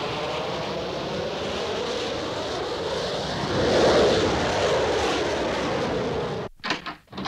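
Four-engine jet transport plane's engines running as it climbs past overhead, swelling to a peak about four seconds in with the pitch sliding as it passes, then cutting off abruptly. A few short knocks follow near the end.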